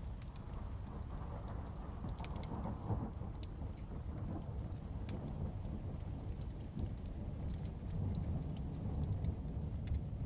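Steady rain with a low rumble of thunder, swelling briefly about two seconds in, and scattered sharp crackles and pops from a wood fire.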